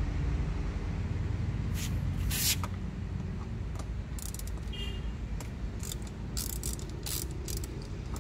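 Hand bit-driver tool working the screws of a motorcycle's plastic fairing panel: scattered sharp clicks and short rasps, the loudest about two seconds in, over a steady low rumble.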